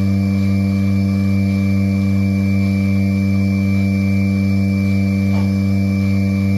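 Milking machine's vacuum pump running, a loud steady hum.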